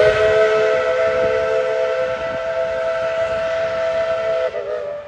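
Steam whistle of 1917 Baldwin narrow-gauge 4-6-0 locomotive No. 12 blowing one long blast, several notes sounding together as a chord. Near the end the pitch wavers and the whistle weakens.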